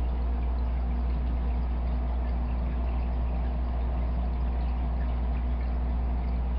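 Aquarium equipment running: a steady low hum under a constant trickle of water, typical of a tank's filter or pump.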